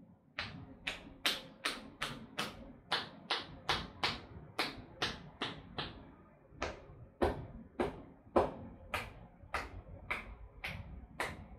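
Percussive hand massage on a bare arm: the masseuse's hands strike the arm in quick sharp claps, about two a second, with a short pause about halfway through.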